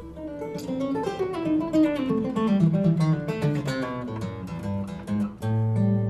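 Acoustic guitar played in a quick run of single plucked notes falling in pitch, then a low bass note and chord struck about five and a half seconds in and left ringing.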